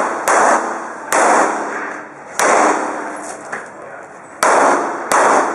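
Pistol shots from a competitor running an IPSC course of fire: five shots at uneven intervals, each followed by a long echo.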